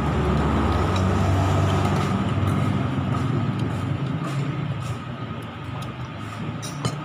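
Low rumble of a passing heavy road vehicle, loudest in the first couple of seconds and then fading away, over a steady high whine.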